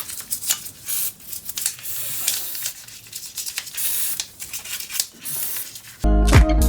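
Cleaning noises on a motorcycle's engine and front end: irregular hissing and rubbing strokes with small clicks. Music with a steady beat comes in near the end.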